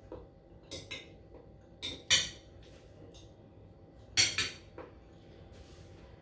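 Metal spoon clinking and scraping against a bowl during a meal: a handful of short, sharp clinks, the two loudest about two and four seconds in.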